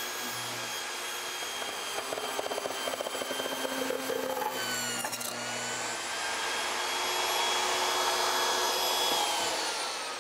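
A SawStop compact table saw runs with a steady high motor whine while its blade rips through foam board. The board is being cut with the riving knife removed and the blade set high to provoke kickback. The pitch sags briefly about halfway through, then falls away near the end as the saw winds down.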